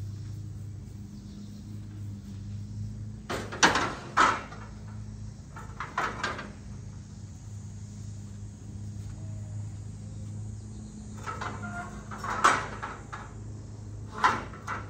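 Pieces of scrap metal clanking as they are handled and dropped, in a few separate groups of sharp knocks, over a steady low hum.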